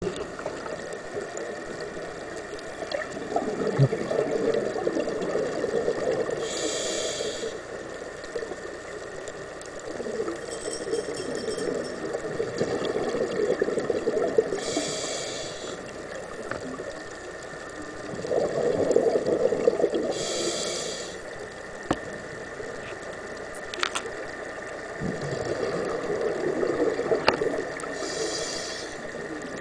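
Scuba diver breathing through a regulator underwater, heard through the camera housing: five short hisses of inhaled air, each followed by a few seconds of bubbling exhaust as the breath is let out.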